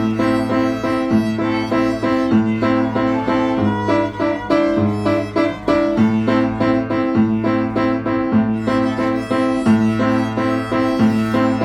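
Violin and piano playing a children's song together at a steady tempo, over a repeating bass line.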